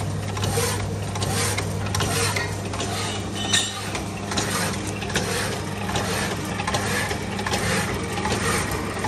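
Power hacksaw cutting iron bar: rhythmic scraping as the blade strokes back and forth through the metal, over the steady hum of the machine's electric motor. There is one sharp tick about three and a half seconds in.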